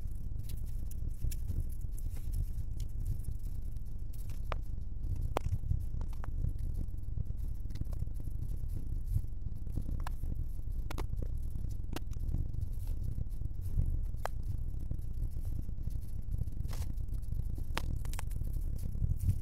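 Scania K410 double-decker bus driving slowly, heard from inside as a steady low rumble, with scattered sharp clicks and knocks.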